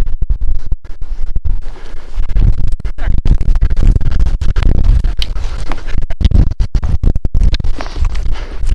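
Heavy, uneven rumbling and scratching from a body-worn camera's microphone rubbing and being buffeted as the wearer moves.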